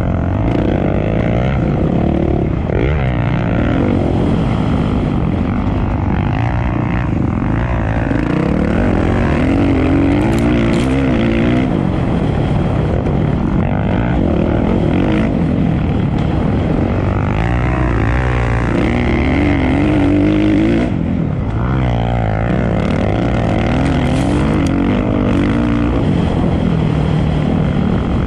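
Racing engines running hard on a circuit, their pitch rising and falling over and over as they rev up and back off.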